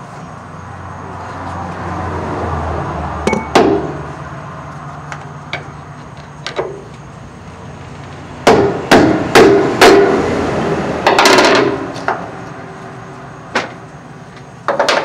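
Club hammer striking a tool held against the locking fuel cap of a Freightliner Cascadia fuel tank: sharp metal-on-metal blows, a couple a little over three seconds in, then a run of four loud strikes and a clatter just past the middle. The blows break the cap's lock so that it can be removed without the key.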